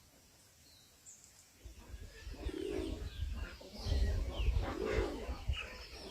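Farmyard birds calling: after a quiet start, two low coos and a scatter of short, high, falling chirps, over a low rumble that comes in about two seconds in.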